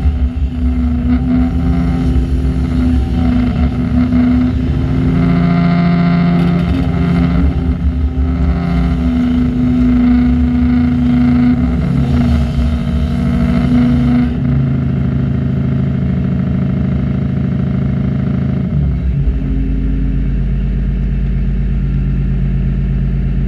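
Diesel engines of heavy construction plant, an excavator and a site dumper, running continuously. The engine note and load vary through the first half, then settle to a steadier, lower drone about two-thirds of the way in.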